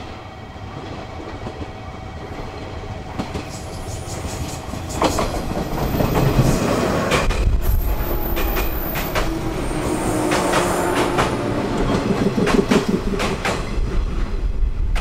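A JR Kyushu 415-series AC/DC electric multiple unit draws near and passes close by, its sound growing steadily louder. From about five seconds in, the wheels clickety-clack over rail joints and points.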